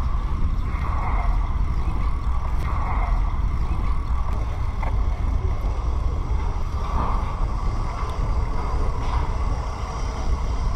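Wind buffeting the microphone of a moving bicycle, a steady low rumble, with a short, fainter pitched sound repeating roughly every two seconds.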